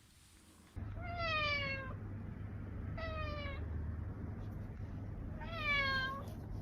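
Domestic cat meowing three times, each meow under a second long, over a steady low hum that starts just before the first meow.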